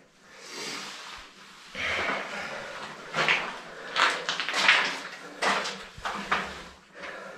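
A run of irregular scrapes and scuffs, starting about two seconds in, with the loudest ones around the middle.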